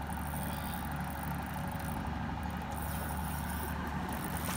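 Fishing boat's engine running steadily at idle, a constant low drone.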